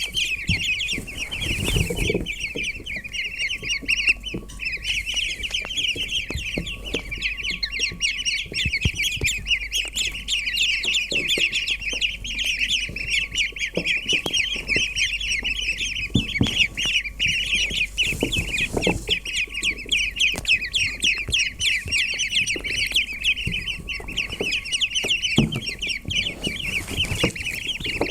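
A brood of young ducklings peeping together: a dense, continuous chorus of many short high-pitched peeps overlapping one another, with a few low bumps.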